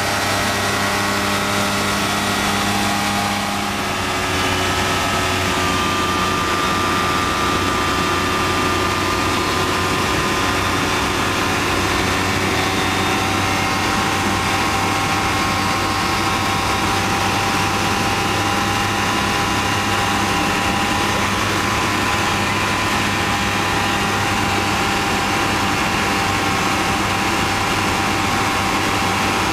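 Rotax engine and propeller of a Kitfox IV floatplane running steadily in flight, heard from inside the cockpit. The level dips briefly and the pitch shifts about four seconds in.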